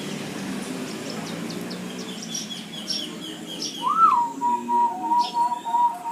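Zebra dove (perkutut) singing: about four seconds in, a loud note rising and falling, then a string of short repeated notes alternating between two pitches. Before it, a quicker run of high chirps from a smaller bird, over a low murmur.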